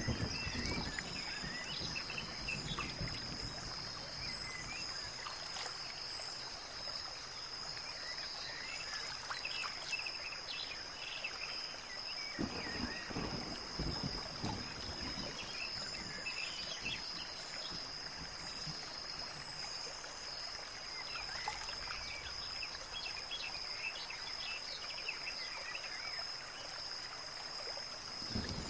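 Steady background noise with a constant high-pitched tone and scattered faint clicks and chirps.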